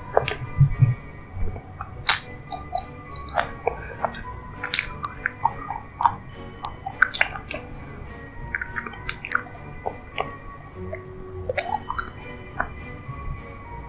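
Close-miked chewing and wet mouth sounds of eating a soft, sticky, creamy dessert: irregular smacks, squelches and small bites, over background music.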